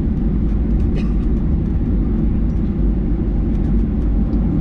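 Steady low rumble inside the cabin of a Boeing 737-800 airliner, with a few faint clicks.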